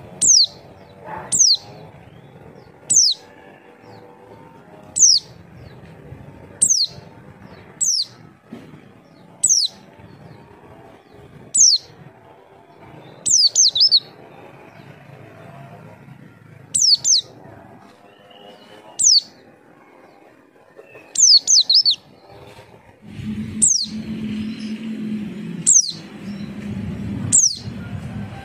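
White-eye (pleci) giving short, high call notes that fall in pitch, one about every one to two seconds, a few in quick pairs or threes. This is the lure call used to get other white-eyes to answer. A low hum comes in behind the calls about two-thirds of the way through.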